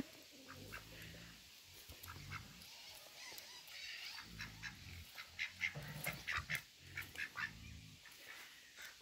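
Farmyard animals calling: a series of low, pitched calls, with short high chirps scattered between them, more of them in the second half.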